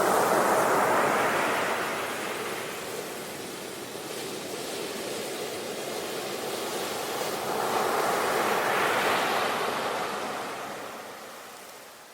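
Ocean waves breaking on a shore, a rushing wash of surf that swells and recedes: one wave crashes at the start and another about eight seconds in, with quieter surf between them.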